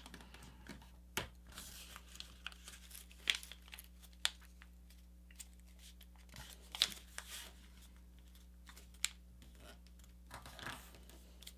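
A sheet of A4 paper being folded and creased by hand: soft rustling with scattered crisp crinkles as the wing of a paper airplane is folded over and the crease pressed flat.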